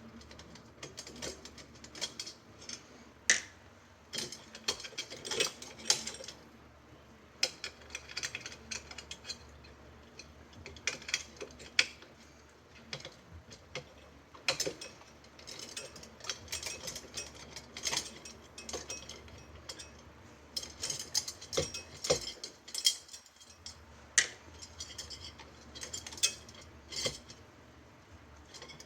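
Irregular metallic clicks and clinks of a bicycle wheel's spokes and nipples being unscrewed and pulled out by hand. The spokes are slack, with no tension left in the wheel.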